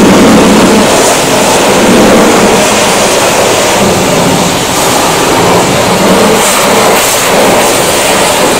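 Steam jenny's high-pressure wand spraying water against a bus chassis and front axle: a loud, steady hiss of spray on metal over a steady low hum.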